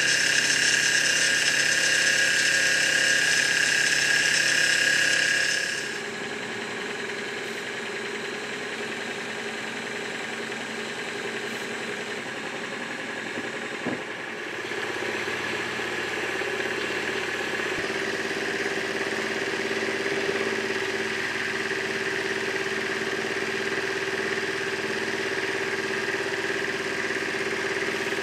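Small live-steam model engines running under steam on a test plant, a steady mechanical whirr with steam hiss. The sound drops sharply about six seconds in, then rises again from about fifteen seconds into a steady, lower hum.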